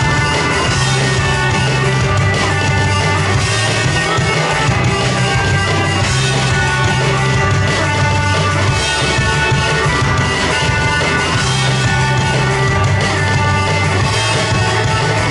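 Loud rock-style backing track with drums, bass and guitar, an instrumental passage with a steady beat and a repeating bass line, played back from a laptop through the venue's speakers.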